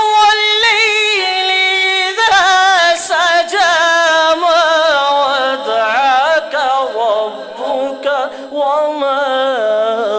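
A man singing a naat unaccompanied in a high register, in long ornamented held notes with a strong vibrato, the melody slowly descending.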